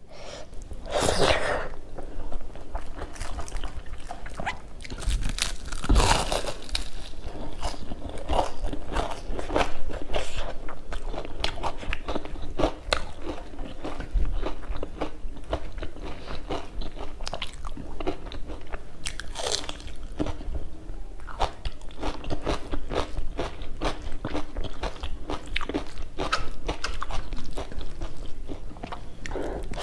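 Close-miked eating: crisp, repeated crunching and chewing of fried battered chive fritters (nakuppi bora) eaten by hand with rice, with a few louder bites along the way.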